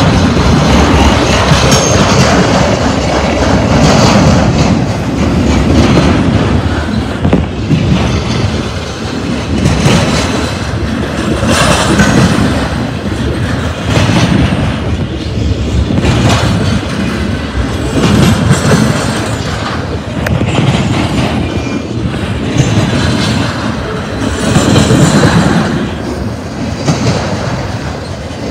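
BNSF intermodal freight train rolling past: a steady loud rumble with wheels clacking over rail joints, swelling and easing about every two seconds as the cars go by.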